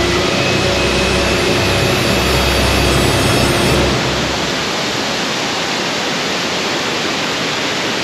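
Thi Lo Su waterfall: water pouring over the cliff edge in a loud, steady rush of falling water.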